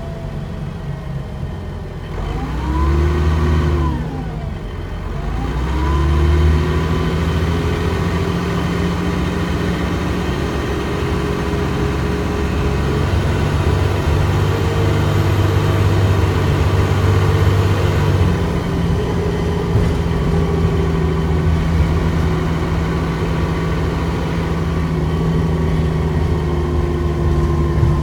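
Dennis Trident 2 double-decker bus's diesel engine and driveline, heard from inside the passenger saloon: it speeds up with a rising pitch, the pitch drops at a gear change about four seconds in and climbs again, then the bus runs on at a steady speed with a constant whine over the engine's low rumble.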